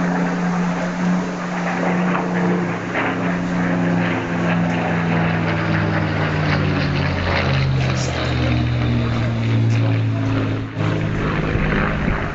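Supermarine Spitfire LF IX's Rolls-Royce Merlin V12 engine running loud as the aircraft flies past overhead, its drone falling in pitch as it passes.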